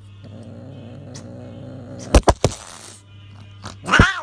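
A cat meows once, loudly, near the end. About two seconds in there are a few short, sharp noisy bursts, over steady background music.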